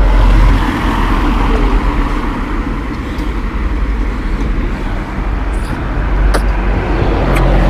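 City street traffic: cars driving past, a steady rumble of engines and tyres that swells and eases.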